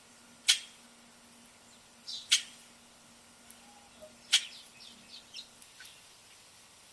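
Great-tailed grackles calling: three loud, sharp calls about two seconds apart, with quieter chattering notes between them near the middle and end.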